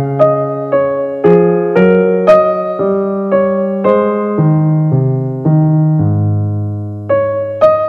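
Background music: a piano-like keyboard playing a melody over low held bass notes, with a new note or chord struck about every half second.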